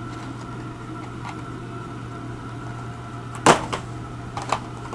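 Steady electrical hum, with a sharp crackle of plastic blister packaging being handled about three and a half seconds in, then two lighter plastic clicks shortly after.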